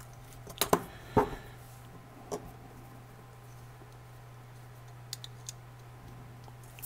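A few sharp clicks and taps of hobby tools being handled and set down on a cutting mat, the loudest in the first second and a half, then a few fainter ticks near the middle. A steady low hum runs underneath.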